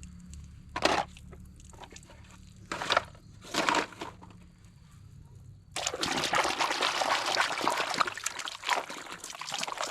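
Water splashing as toy cars are washed: a few short splashes, then a steady rush of running or poured water starting about six seconds in.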